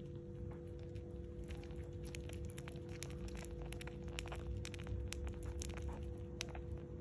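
Newborn rabbit kits nursing from the doe, making many small irregular clicks and smacks as they suckle and squirm, over a steady low hum.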